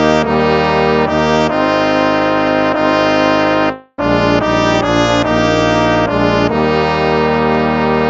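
Instrumental hymn played on brass instruments in sustained chords; one phrase fades out into a short silence just before four seconds in and the next phrase begins.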